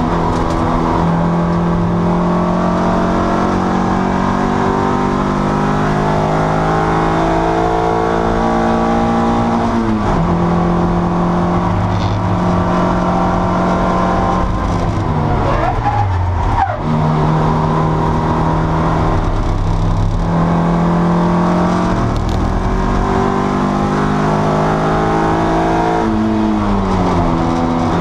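Racing car's engine heard from inside the cockpit under hard use on track. The pitch climbs steadily as the car accelerates and drops at gear changes or braking: about ten seconds in, in a longer fall ending sharply around sixteen seconds, and again near the end.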